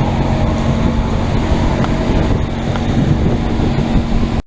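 Small motorboat running through rough sea: a steady engine drone under heavy wind buffeting the microphone and rushing water. It cuts off suddenly near the end.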